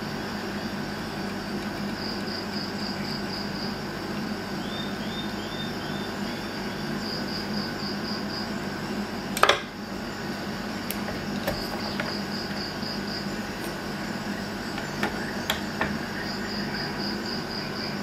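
A sharp metal clack about halfway through as a small bench vise is worked by hand, followed by a few lighter clicks. Under it, a steady low hum and short bursts of rapid high-pitched chirping that recur every few seconds.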